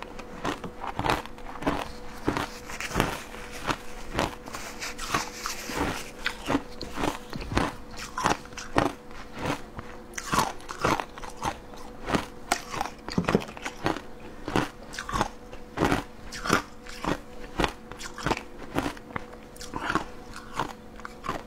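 Close-miked crunching of frozen matcha shaved ice being chewed, a rapid series of sharp crunches at about two a second.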